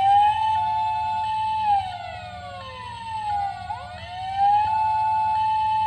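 Electronic toy ambulance sirens sounding together: one wails, rising, holding high, sliding down and rising again, while a second siren alternates between two notes underneath.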